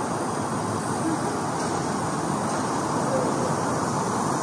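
Steady traffic noise, an even, continuous rumble with no distinct events.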